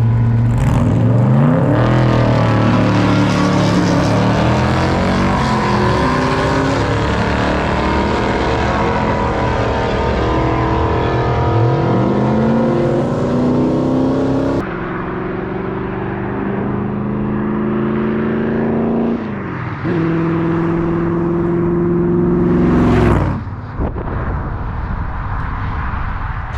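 1974 Corvette's V8 engine running under way, its pitch climbing and dropping several times as it accelerates and shifts gears. The sound changes abruptly about halfway through, then settles to a steadier run.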